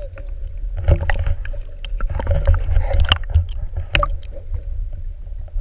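Muffled underwater sound picked up through a camera held below the sea surface: a steady low rumble of moving water with scattered sharp clicks and knocks against the housing, and a faint steady hum underneath.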